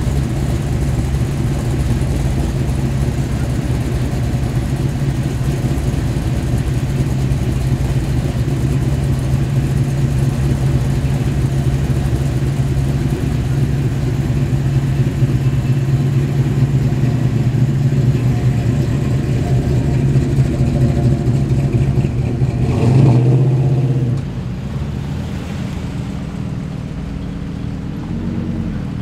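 Early-1970s Dodge Dart's engine idling steadily as the car creeps past, with a short rev about three quarters of the way through, after which it drops away. Another car's engine rises briefly near the end.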